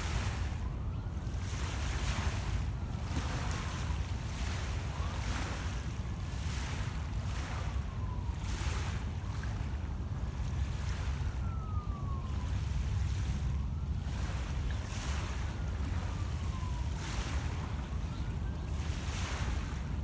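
Small lake waves lapping and washing onto a pebble shore, swelling and fading every second or two, with wind rumbling on the microphone.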